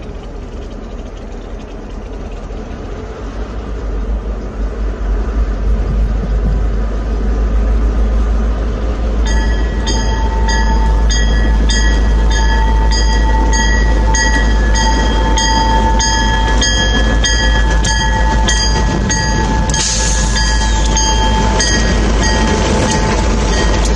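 Canadian Pacific diesel freight locomotive approaching and passing, its deep engine rumble building over the first few seconds. From about nine seconds in, a warning bell rings steadily over it, about one and a half strikes a second.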